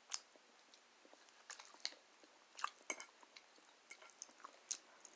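A person chewing food close to the microphone: quiet mouth sounds with scattered small crunchy clicks.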